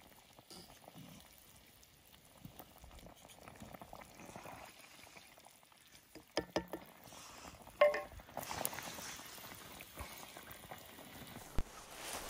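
Food simmering and bubbling in a cast iron pan, faint and steady, with a few clicks and one ringing metal clink about eight seconds in.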